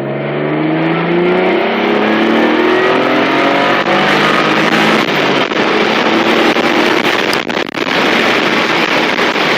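Mitsubishi 3000GT VR-4's twin-turbo V6, fitted with upgraded 15G turbochargers, at full throttle in second gear, heard from inside the cabin: the engine note climbs steadily for about five seconds. Then the note gives way to a loud, steady rushing noise, with a brief dip near the end.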